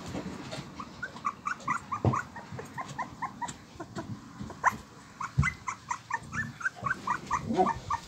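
Husky puppies whimpering in short, high squeaks, several a second, with a few sharp knocks.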